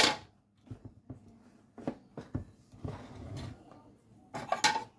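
Clicks and knocks of a kitchen blender's lid and jug being handled and fitted in place; the motor is not yet running.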